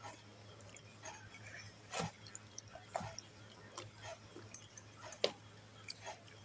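Close-up eating sounds of someone chewing fried instant noodles: scattered wet mouth clicks and smacks, the sharpest about five seconds in, over a steady low hum.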